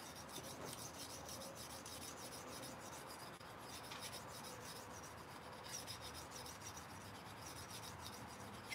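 Faint, rapid, even scraping strokes of a knife edge being worked on a sharpening stone, refining the edge after coarse stones and raising a burr along it.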